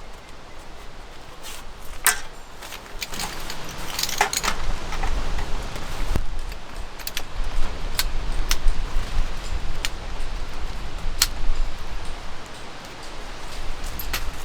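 Scattered light clinks and knocks of objects being handled, over a low rumble of wind on the microphone.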